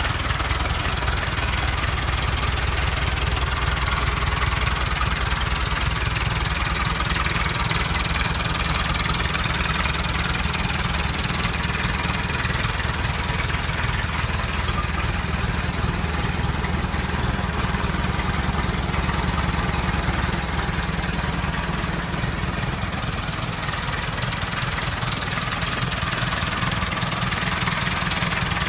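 Landini 8560 F tractor's 80 hp diesel engine idling steadily, with a fast, even low knock.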